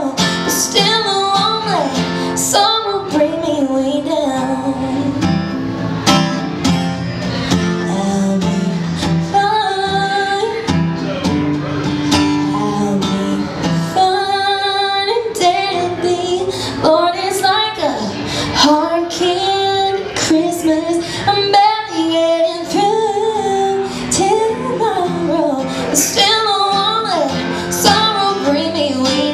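A woman singing with her own acoustic guitar accompaniment, her voice gliding through long held and bending notes over the guitar.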